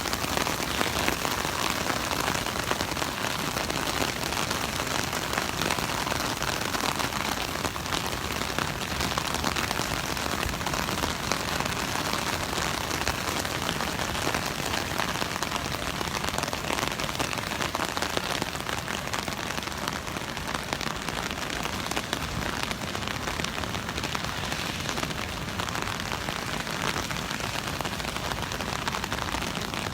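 Heavy rain falling on an umbrella held overhead: a dense, steady hiss of drops.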